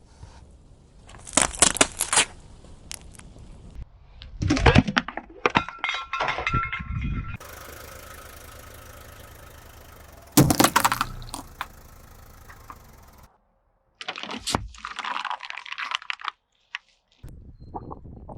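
A series of short cut-together clips of a car's tyres rolling over objects and crushing them, with several sudden bursts of cracking and crunching and a car engine running under one of them.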